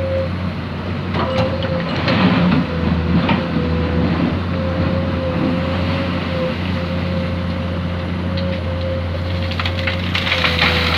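Excavator's diesel engine running steadily with a held hydraulic whine, and the bucket crunching and scraping through sand about one to three and a half seconds in.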